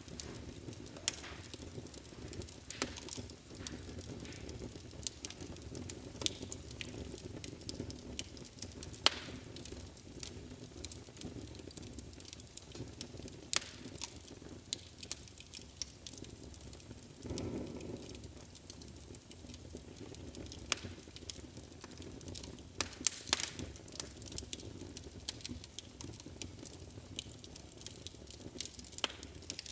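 Wood fire burning in a fireplace: a steady low rumble of flame with irregular sharp crackles and pops, the loudest at about 9, 13 and 23 seconds in, and a soft whooshing flare about two-thirds of the way through.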